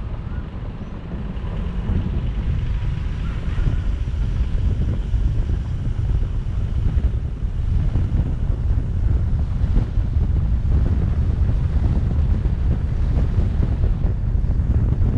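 Wind buffeting the microphone over the steady low rumble of a car driving along a road.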